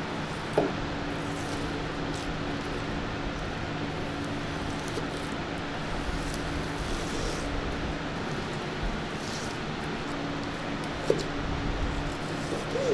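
Steady background noise with a low machine hum, over which a long knife slices through a raw salmon fillet on a plastic cutting board, with two sharp taps of the blade on the board, about half a second in and about eleven seconds in.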